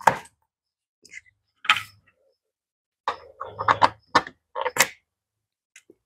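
Plastic cover of a NEMA 14-50 outlet being fitted back on by hand and screwed down with a screwdriver: scattered sharp clicks and taps, a few single ones at first, then a quick run of them past the halfway point.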